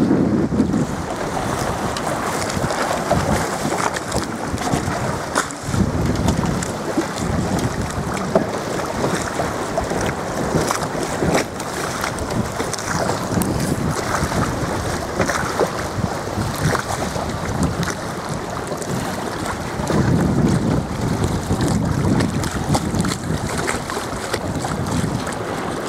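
Wind buffeting the microphone, with choppy water splashing against a small boat's hull. The wind hits harder a few times, about six seconds in and again about twenty seconds in.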